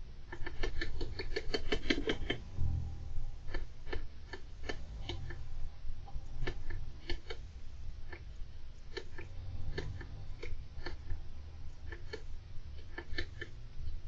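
Small sharp clicks and taps from a golden hamster busy in its cage: a quick run of about eight a second in the first two seconds, then scattered single clicks and pairs. A steady low hum lies underneath.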